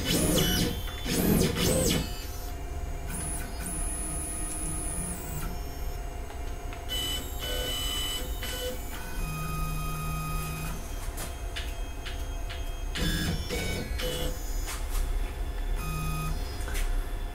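Onefinity CNC's stepper motors whining in a series of short jogs, each a steady tone at a different pitch, as the Z axis is stepped down toward the touch probe to set the new bit's depth.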